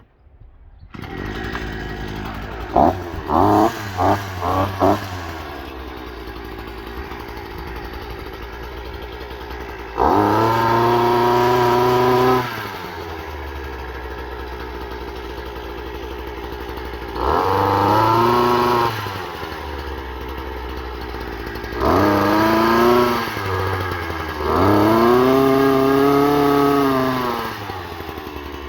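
Two-stroke petrol engine of a Parkside PBK 4 B3 multi-tool, running its hedge trimmer attachment. It comes on about a second in and idles, with five quick throttle blips, then four longer revs of a couple of seconds each that rise and fall back to idle.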